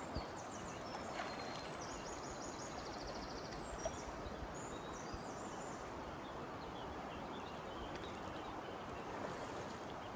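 Steady rush of a river flowing over a shallow riffle, with a few faint high chirping trills over it.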